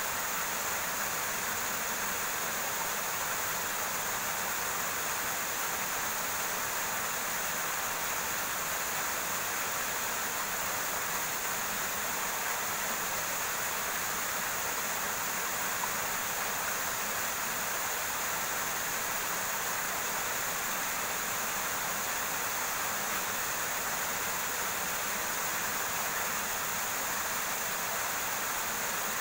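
River water running over rocks: a steady, unbroken rushing.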